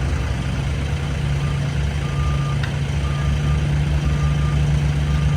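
Dump truck backing up: its reversing alarm beeps about once a second over the steady hum of its diesel engine.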